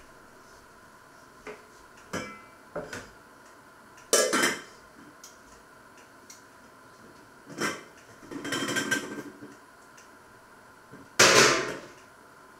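Dishes and cookware being handled in a kitchen: a run of knocks, clinks and clatters, the loudest about four seconds in and near the end, with a longer rattle around eight to nine seconds.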